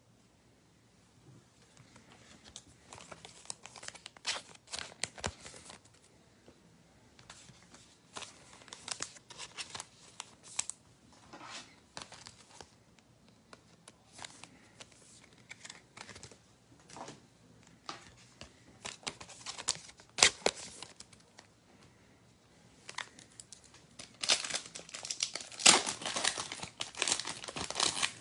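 Foil trading-card pack wrapper crinkling in short, scattered rustles as it is handled, then a denser, louder stretch of crinkling and tearing near the end as the pack is torn open.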